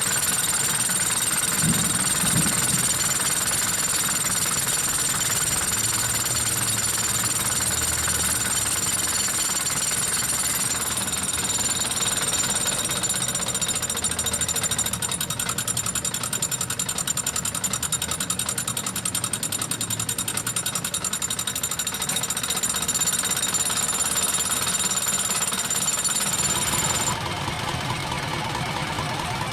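Isuzu 4JA1 four-cylinder diesel engine running with a steady, rapid clatter. About 27 seconds in, a high-pitched whine over it stops and the sound drops slightly.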